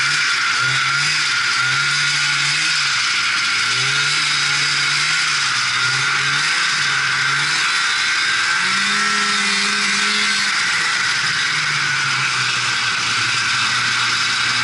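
Polaris Indy Sport 340 snowmobile's two-stroke engine running as the sled moves along the trail, its pitch rising and falling repeatedly with the throttle and highest a little past halfway, over a steady hiss.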